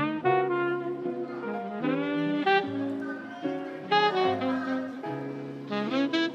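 Background lo-fi chill-hop music: a melodic lead line with sliding, scooped notes over a steady bass line.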